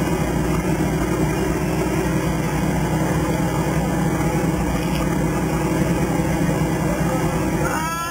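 A 4x4's engine running steadily, a continuous low rumble, during a winch recovery of a rolled-over vehicle.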